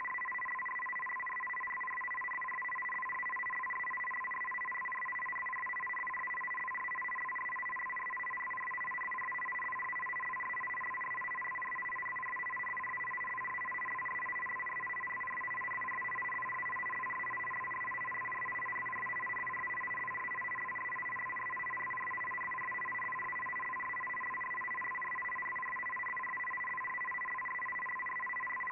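Shortwave receiver audio of an MFSK digital-mode picture transmission: two steady electronic tones, a low one and one an octave higher, held over band hiss while the image is sent.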